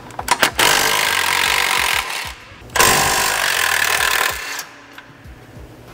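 Cordless brushless impact wrench hammering on exhaust bolts under the car, loosening them. A few short trigger blips, then two long runs of hammering with a short pause between.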